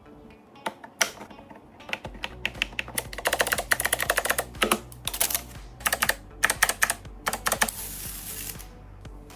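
Keys of an 8BitDo mechanical keyboard being typed: a few separate clicks, then quick runs of rapid key clicks.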